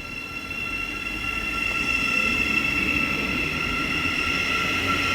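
Thameslink Class 700 electric multiple unit pulling away from the station, its electric traction equipment giving a steady high whine over a low rumble of wheels. The sound grows louder over the first two seconds, then holds steady.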